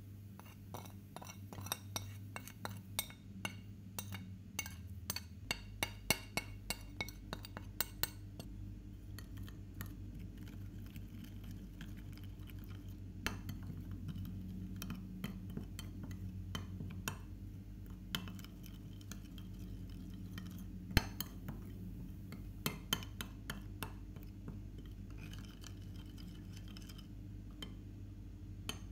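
Metal spoon clinking against a ceramic bowl and plate while spices are pushed in and stirred into olive oil: quick, dense clinks for the first several seconds, then slower, scattered clinks. A low steady hum runs underneath.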